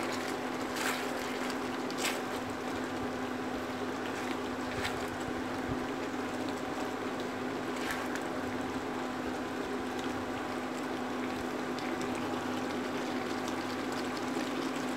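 Vegetable curry in a thin gravy bubbling in a nonstick frying pan while a silicone spatula stirs it, with a few light knocks of the spatula against the pan. A steady low hum runs underneath.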